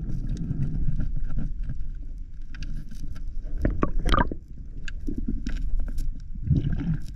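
Underwater water noise picked up by the camera: a steady low rumble of moving water with scattered clicks and crackles, a short gurgling burst about four seconds in, and a low swell near the end.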